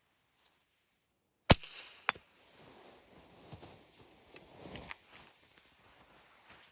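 A single sharp shot from a .22 pellet rifle about a second and a half in, followed about half a second later by a second, weaker crack as the pellet strikes the target. Faint rustling and a few small clicks follow.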